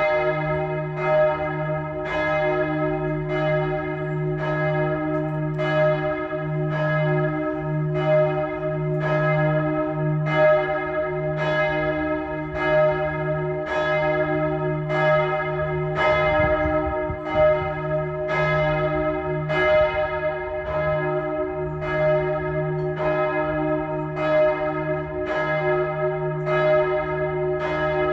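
A single swinging church bell with the strike note E-flat (es′), struck about once a second. Each stroke lands while the previous one is still ringing, so the tone runs on without a break.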